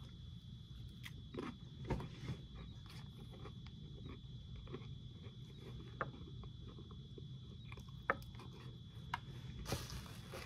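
A person chewing a cracker topped with fried herring, with scattered small crunches and mouth clicks. A steady low hum and a faint high whine run underneath, and a breathy rush of air comes near the end.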